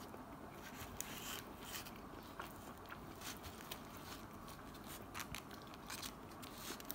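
Metal knife and fork cutting a slice of ham and scraping against a paper-pulp food tray: a scatter of soft, irregular clicks and scrapes.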